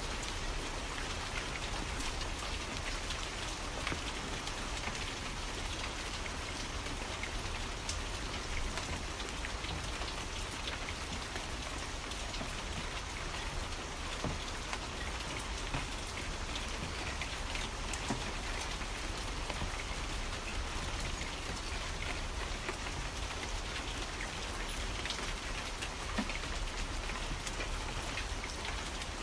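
Steady rain falling, with many individual drops ticking sharply through the even hiss.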